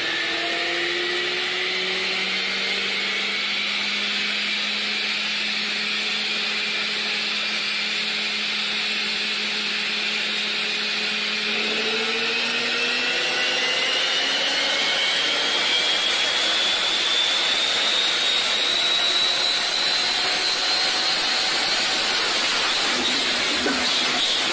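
Ford Shelby GT500's supercharged V8 running flat-out on a chassis dynamometer, wheels spinning the rollers. Its pitch holds steady for about the first half, then climbs slowly in a rising whine as the run builds speed.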